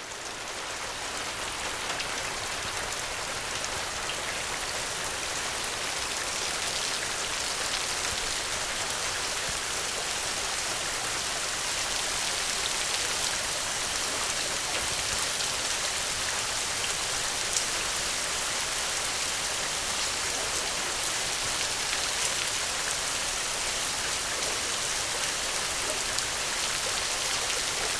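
Steady, gentle rain falling, a dense hiss with fine drop patter throughout. It swells in over the first second or two and then holds even.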